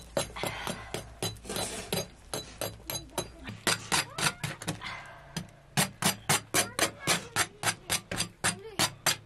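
Background music with a steady percussive beat, about three strikes a second, over a low hum.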